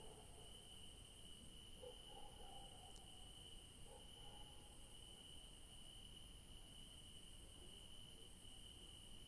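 Crickets trilling faintly, a steady unbroken high tone, with a fainter, even higher steady insect hum above it.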